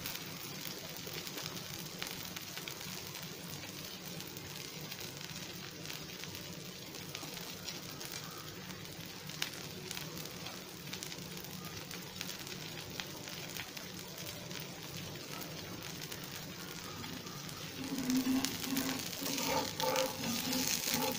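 Dosa batter frying in oil on a hot tawa, a steady sizzle with fine crackling ticks as the thin dosa crisps. About three seconds before the end a louder sound with a low pitched tone joins in.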